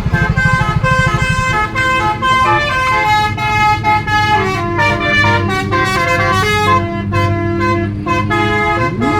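Bus musical telolet (basuri) horn playing a melody of held notes stepping up and down, over a fast throbbing low note for the first second and a half, with a rising whoop near the end.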